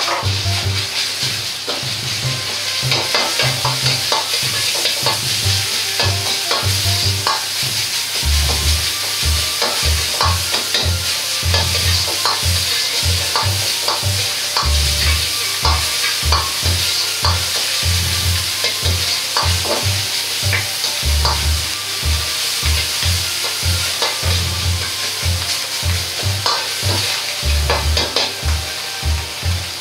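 Ground meat sizzling in a hot wok while a metal ladle stirs and scrapes it. The sizzle is a steady hiss, broken by frequent clicks of the ladle on the wok and repeated low thumps.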